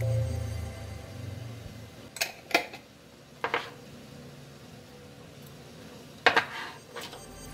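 Kitchenware clinking: a glass spice jar and a ceramic plate knocked lightly, four sharp clinks spread over a few seconds. Background music fades out at the start.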